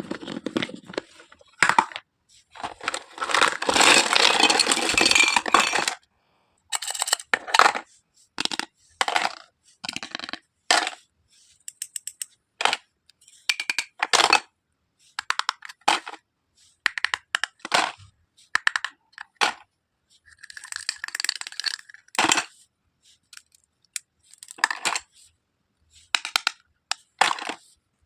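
Hard plastic pieces of a pink toy medical kit being handled, clicking, tapping and clattering in short irregular bursts. A longer stretch of rustling comes about three seconds in.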